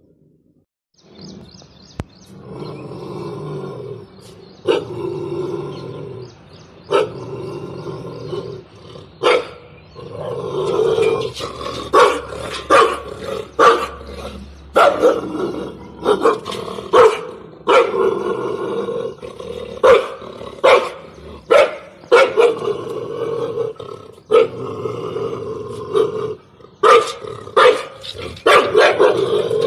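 A large black dog barking in loud, sharp, irregular barks, often one to two a second, with a continuous low growl between them; the barking starts a few seconds in and grows more frequent about halfway through. It is aggressive territorial barking at another dog.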